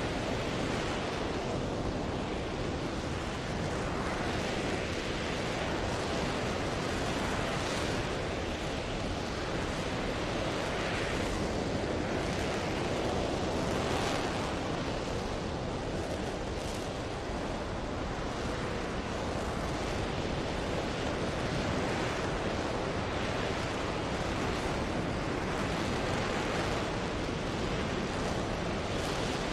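RS-25 liquid-hydrogen/liquid-oxygen rocket engine in a hot-fire test, giving a steady, even rush of noise with no breaks or changes.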